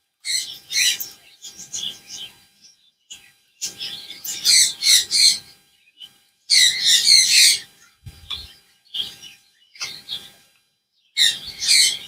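Caged birds chirping and chattering in repeated bursts of quick high calls, with short pauses between.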